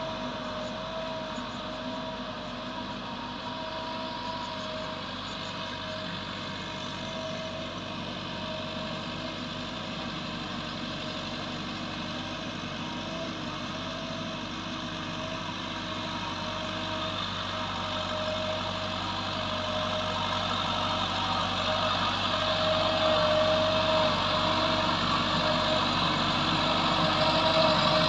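Massey Ferguson 385's four-cylinder diesel engine running steadily under load as the tractor pulls a seven-tine chisel cultivator through the soil. It grows louder over the last third as the tractor draws near.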